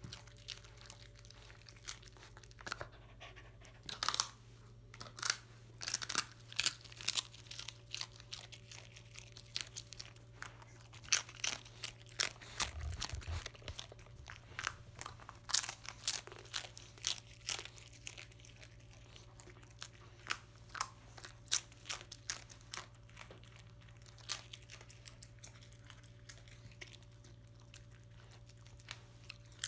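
A dog chewing crumbs of crust of overcooked rice (nurungji), a long run of sharp, irregular crunches, with a low thud about thirteen seconds in.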